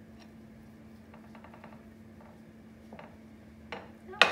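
Light clicks and taps of a slotted spoon against plates while poached eggs are lifted, with one sharp clack near the end. A steady faint hum runs underneath.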